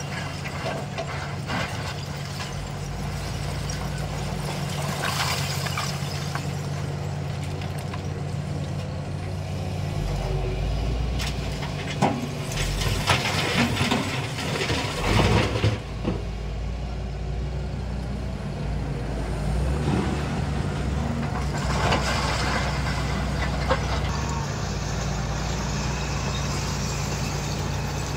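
Heavy diesel machinery of an excavator and tipper truck running steadily. Roughly midway there is a run of loud knocks and clatter, typical of rock being loaded into the tipper's body.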